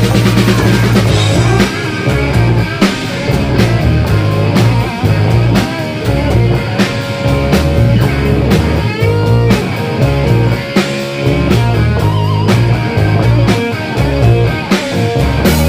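Rock band playing: electric guitar with bending lead lines over bass and a steady drum kit beat.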